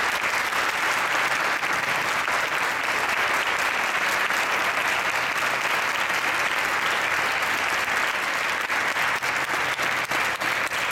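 Audience applauding steadily, the clapping thinning into more separate claps near the end.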